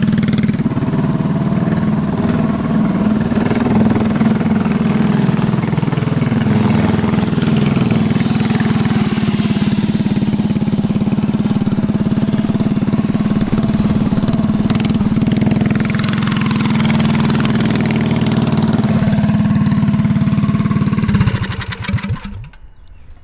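Brand-new Tillotson 212 single-cylinder four-stroke engine on a mini bike, running steadily as the bike is ridden, with its governor still fitted. It shuts off about a second before the end.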